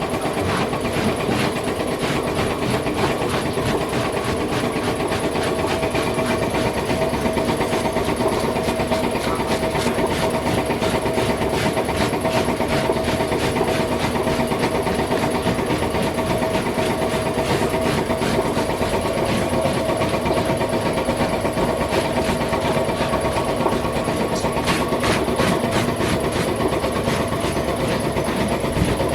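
A machine running steadily with a fast, even clatter and a steady hum.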